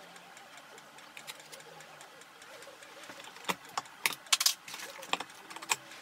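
Sped-up bench handling noise: after a faint steady background, a quick run of sharp clicks and knocks in the second half as small parts and tools are set down and picked up on a desk cutting mat.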